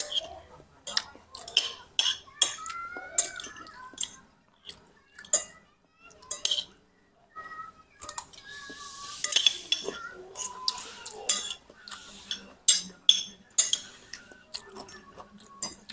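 Metal spoon and fork clinking and scraping against a plate while eating, with many sharp clinks and a longer scrape about halfway through.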